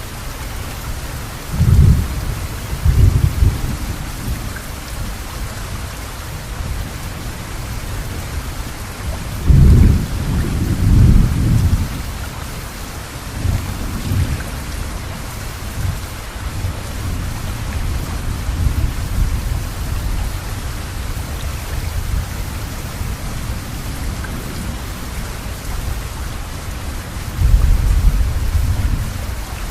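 Steady rain falling, with thunder rumbling low through it: a pair of rolls about two seconds in, the loudest, longest roll around ten seconds in, a short one near fourteen seconds, and another near the end.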